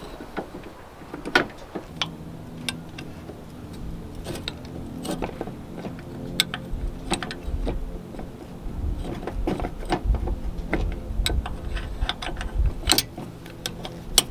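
Scattered metal clicks and clinks as a caster wheel is pinned onto a trailer's tongue jack, a steel pin and hairpin clip being pushed through the jack foot. A low steady hum runs underneath from about two seconds in.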